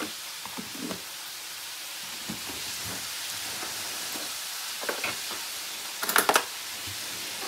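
Vegetables sizzling in hot oil in a pot on the stove, a steady hiss, with a few light clinks of jars in a drawer in the first second and a short clatter of metal cutlery in a drawer tray about six seconds in, the loudest sound.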